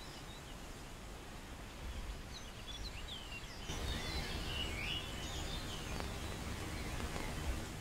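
Outdoor country ambience: small birds chirping in short calls over a steady low background noise, the chirping growing busier about halfway through.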